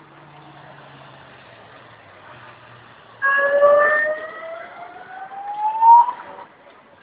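A siren sounds about three seconds in: one wail that rises steadily in pitch for about three seconds and then cuts off. Before it there is a low hum of road traffic.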